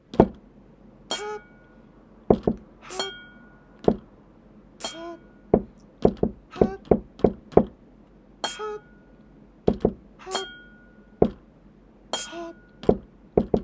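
A rhythmic pattern of sharp knocks and clicks mixed with short, pitched, ringing clinks, like struck glass. These are everyday objects struck as percussion to play a song's intro.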